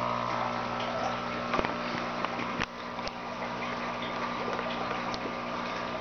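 Small electric aquarium air pump humming steadily, fainter once the first moment has passed, with a few light clicks about a second and a half to three seconds in.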